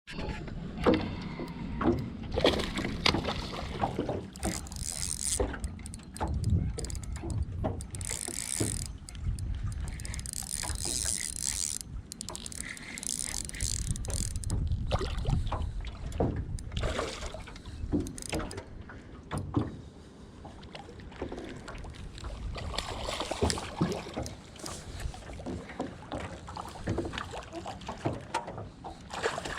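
Knocks and handling noises in a small fishing boat, over a steady low rumble of wind and water, with patches of high hiss.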